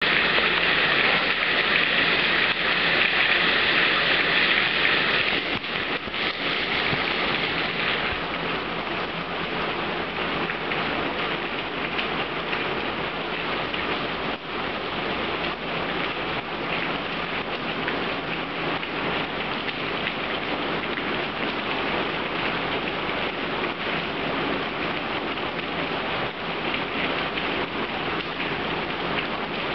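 Heavy rain pouring and splashing on waterlogged ground, a dense steady hiss. It is louder and brighter for about the first five seconds, then settles to an even level.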